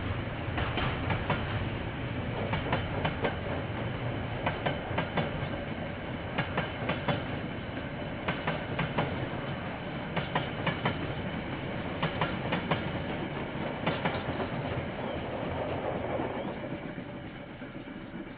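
Train wagons rolling past on the rails, their wheels clicking over rail joints in pairs about every two seconds over a steady rumble. The sound fades near the end as the train moves away.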